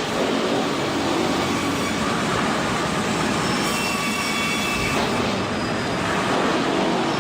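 Sawmill wood-cutting machinery running: a loud, steady mechanical clatter and rush. A few thin high whines come in a little past halfway.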